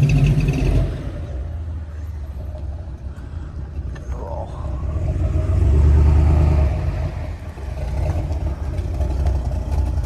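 An engine running with a steady low rumble. It swells louder about six seconds in, then eases back.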